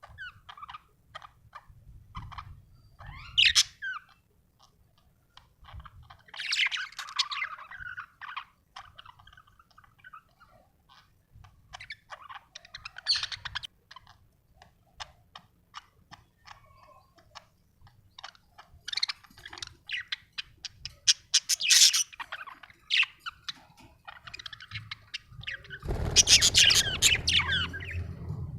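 Budgerigars chirping and chattering: quick short chirps and clicks broken by runs of warbling. A louder, busier burst comes near the end.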